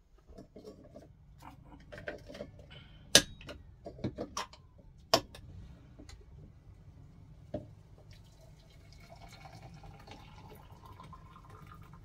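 Sharp clicks and knocks of kitchen items being handled, the loudest two about three and five seconds in. From about nine seconds in, water is poured from a kettle into a coffee dripper over a mug: a soft steady pour with a faint pitch that rises as the vessel fills.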